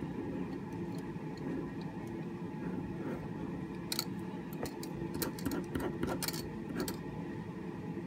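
Pen drawing on a sheet of paper, with light metallic clinks from the handcuffs on the drawer's wrists now and then, mostly in the second half, over a steady low background hum.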